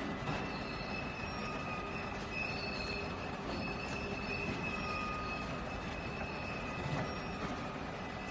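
A fleet of small AGV parcel-sorting robots driving across the sorting floor: a steady mechanical din with high whines that come and go.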